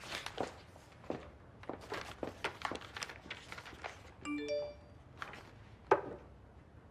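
Light, irregular taps and clicks, with a short electronic chime of a few notes about four seconds in and a sharper knock about a second later.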